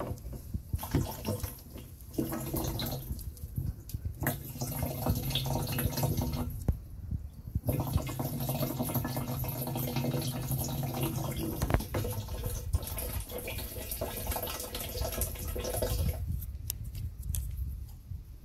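Thin stream of siphoned, filtered water running from clear tubing into the neck of a plastic jerry can, filling it; it drops away near the end.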